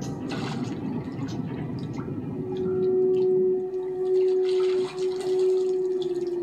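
Shower water running and dripping on a film soundtrack played through laptop speakers. About two and a half seconds in, a single steady note from the film's score comes in and holds.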